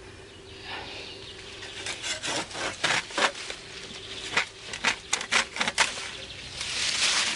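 Rusty hand saw cutting through the woody stems of a bush, a run of about a dozen short, uneven strokes, followed near the end by a longer rustle of leaves and branches.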